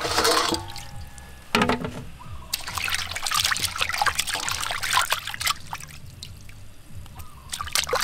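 Water splashing and sloshing in a metal basin as hands wash raw octopuses, squeezing and rubbing them under the water. A burst at the start as the octopuses are tipped in from a tray, a quieter lull past the middle, then busier splashing again near the end.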